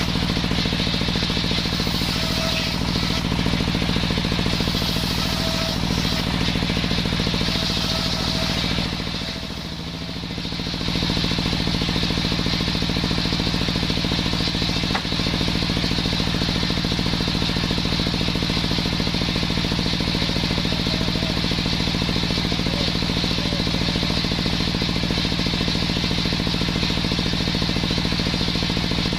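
Homemade engine-driven circular saw running steadily. Its pitch and level dip briefly about nine seconds in, then recover.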